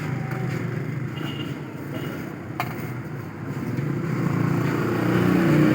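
A motor vehicle's engine running steadily nearby, growing louder toward the end, with one sharp click partway through.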